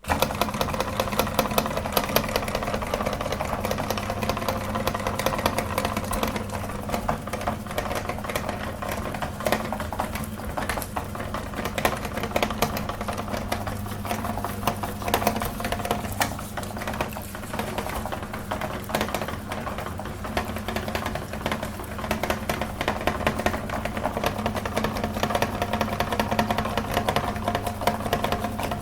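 Electric meat grinder switched on suddenly and running steadily, its motor humming under constant rapid clicking and crackling as it grinds ice cream.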